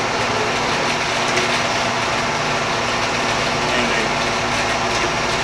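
Clausing Harrison 21x60-inch engine lathe running steadily at low spindle speed, its geared headstock and feed gearbox engaged, giving an even mechanical hum with no change in pitch.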